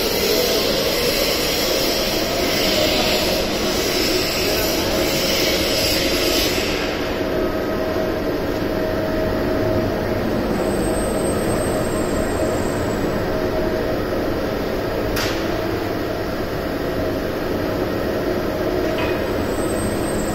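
Electric overhead crane running steadily, carrying a suspended lifting beam, with a steady mechanical whine and rumble from its motors and wheels on the rails. A hiss over it stops about six and a half seconds in, and a single sharp click comes about fifteen seconds in.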